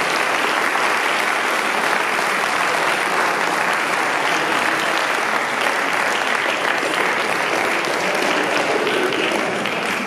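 Banquet audience applauding steadily in welcome, the clapping starting to taper off at the very end.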